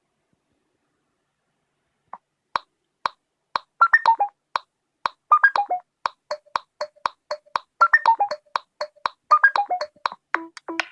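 A Google Pixel phone ringtone playing, starting about two seconds in: a steady beat of short, clicky plucked notes with quick falling runs of pitched notes in between.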